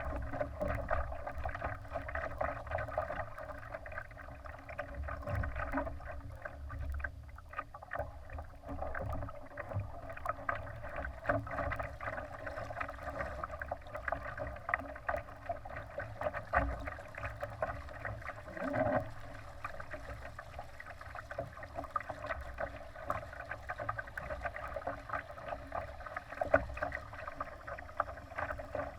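Water continuously splashing and rushing against a Laser sailing dinghy's hull under way, a dense crackle of small splashes over a low rumble.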